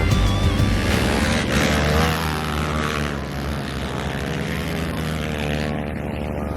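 Racing engines revving up and down, their pitch rising and falling as the ice-race vehicles run the track.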